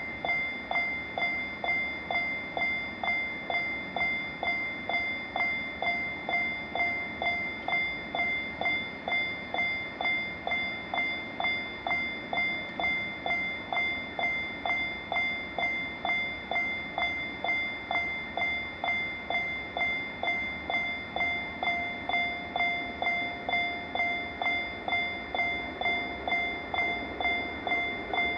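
Japanese railway level-crossing warning bell ringing steadily: an electronic ding repeating a little under twice a second over a continuous high ringing tone.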